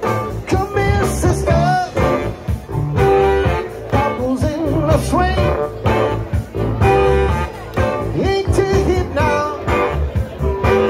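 A live band playing a soul number: a male lead vocal over electric guitars, bass and drums, with a steady beat.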